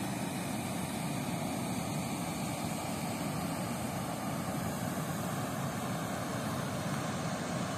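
Heavy water rushing over a dam spillway weir in a steady, even roar, the river running fast and high.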